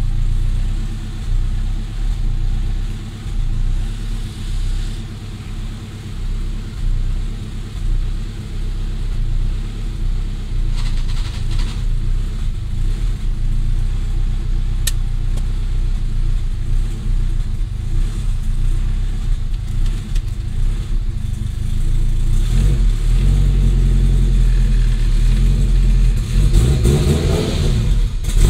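Turbocharged Honda K24/K20 four-cylinder in a 2002 Acura RSX idling cold through a 3.5-inch straight-pipe exhaust. The idle wavers up and down, then steps up louder about 22 seconds in. This uneven cold idle is the car's known idling issue: when not warmed up it acts up and tends to shut off.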